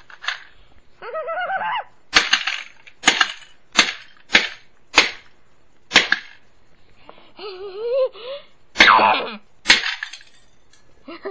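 A plastic VHS cassette being smashed: a series of about eight sharp cracking blows, in a quick run and then two more after a short pause.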